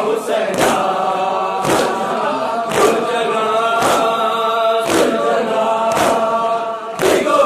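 A noha, the Shia mourning lament, is chanted by a lead singer on a microphone with a crowd of men joining in on long held notes. Under it runs matam: the crowd strikes their chests in unison about once a second.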